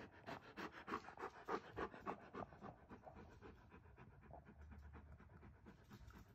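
Doberman pinscher panting with its mouth open, about three pants a second, quieter after the first two or three seconds.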